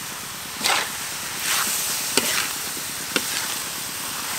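Chicken pieces sizzling in a large metal wok while a long metal ladle stirs them, scraping and knocking against the pan four or five times.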